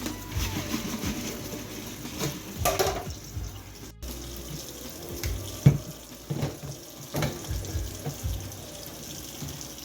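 Kitchen tap running into the sink while dishes are rinsed, with scattered clinks and knocks of dishes being handled.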